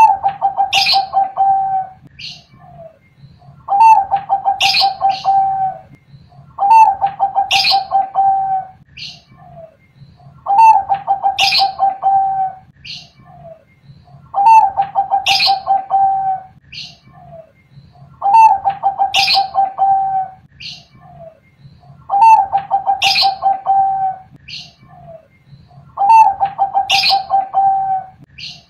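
Bangkok-type zebra dove (perkutut) singing: a cooing phrase repeated about every four seconds, eight times, each a higher opening note followed by a fast run of coos held on one pitch for about two seconds. Faint high chirps of another bird fall between the phrases.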